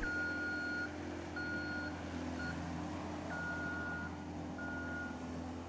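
A nuclear density gauge giving a run of about five high electronic beeps of uneven length, from long to very short, as its density test is set running. A steady low hum lies underneath.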